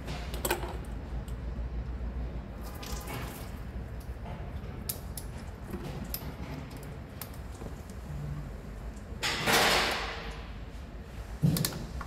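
Hand-tool work in a car engine bay: scattered clicks and metallic clinks of tools and parts, a louder noisy sound lasting about a second around nine and a half seconds in, and a sharp knock near the end.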